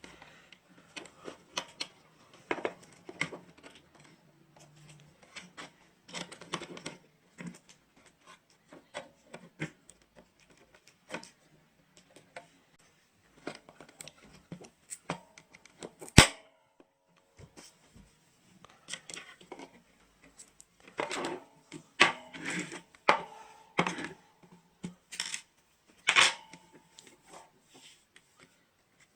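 Irregular small clicks, taps and clatter of tools and electronic parts being handled on a work surface, with one sharp loud click about sixteen seconds in.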